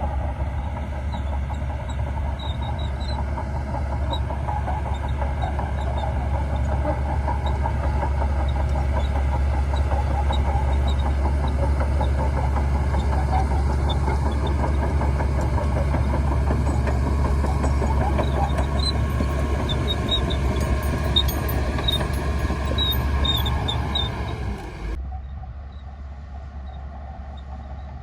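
Shantui crawler bulldozer at work: its diesel engine runs steadily under load amid a dense mechanical rattle of the machine and its tracks. About three seconds before the end the sound drops suddenly to a quieter, duller engine hum.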